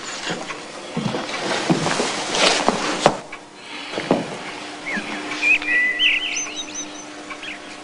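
Birds chirping, with short curving calls about five to six and a half seconds in, over scattered knocks and rustles in the first half; the sharpest knock comes about three seconds in.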